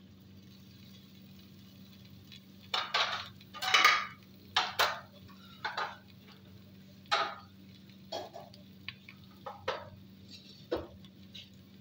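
Kitchen clatter: a series of knocks and scrapes of a ceramic plate, utensils and a cooking pot as the boiled radish is emptied into the pot and dishes are set down on the counter, loudest about four seconds in. A faint steady hum runs underneath.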